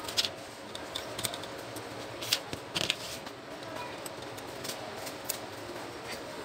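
Small sharp clicks and brief scraping of metal and plastic parts as the print-head assembly of an Epson TM-U220 dot-matrix receipt printer is worked loose by hand and with a small tool. The loudest clicks come twice about two and a half seconds in, and again about five seconds in, over a faint steady hum.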